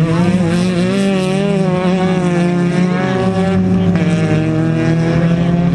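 Engines of several autocross cars racing on a dirt track, held at high revs with their pitch wavering up and down.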